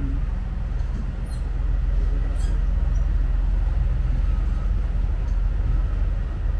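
Small harbour ferry's engine running steadily underway, a constant low drone heard from aboard the boat.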